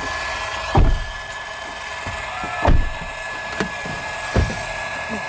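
Three heavy thumps with a few lighter knocks between, from the body of a car, over the steady low hum of its idling engine.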